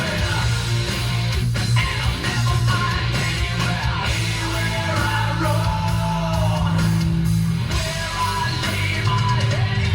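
Music with guitar and singing played loud through the 2016 Montero Sport GLS Premium's factory car stereo, heard inside the cabin through a phone's microphone, with a heavy, prominent bass.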